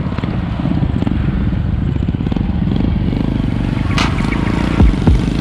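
Small engine of a handmade mini bike running steadily with a fast, even firing beat. There is a sharp click about four seconds in.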